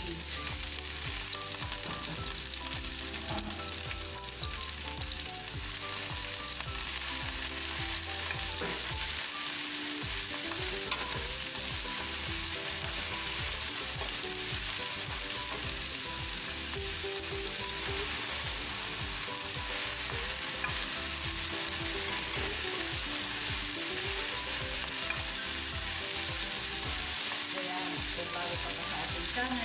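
Kale and sliced bell peppers sizzling steadily in hot oil in a wok, stirred and tossed with a wooden spatula.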